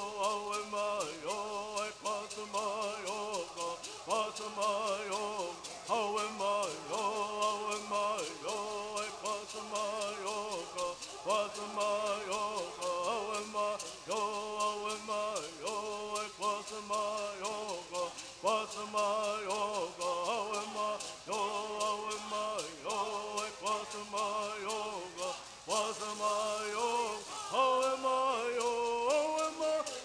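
A group of men singing a Southern California bird song in unison, shaking gourd rattles to a steady beat.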